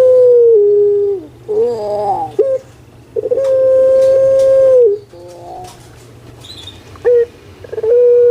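Puter pelung, a long-calling Barbary dove (Streptopelia risoria), cooing loudly. Its long, drawn-out steady notes each drop in pitch at the end, and a rolling, gurgling note falls between them, about a second in.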